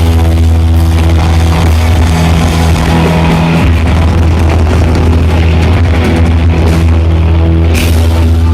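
Rock band playing loud, with electric guitar and bass holding steady sustained notes. A cymbal crashes near the end.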